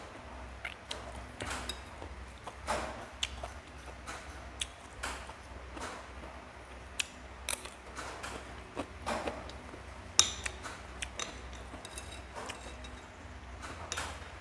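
Metal spoon clinking and scraping against a ceramic bowl of fried rice, with close-up chewing and mouth sounds between spoonfuls. One sharper clink about ten seconds in.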